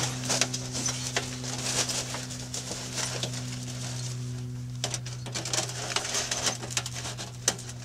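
Thin rolled sheet-metal stove pipe being handled, with a spark arrestor worked into one end: irregular crinkling, tinny rattles and rustles, over a steady low hum.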